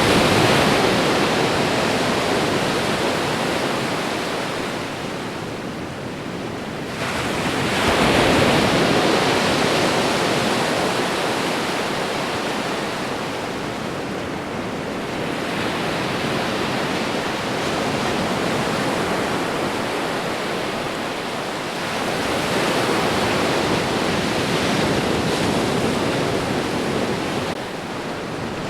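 Ocean waves washing onto a shore: a surge of surf about every seven seconds, each one fading away before the next.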